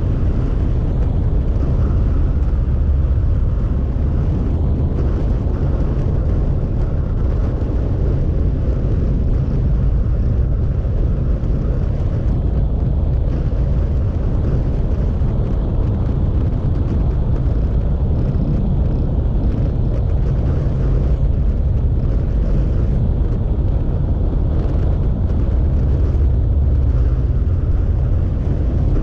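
Steady low rumble of a motorcycle at cruising speed: engine drone mixed with wind rush over the microphone.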